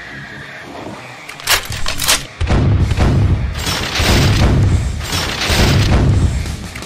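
Battle sound effects: two sharp hits about a second and a half and two seconds in, then a run of rumbling explosion booms that swell and fade several times.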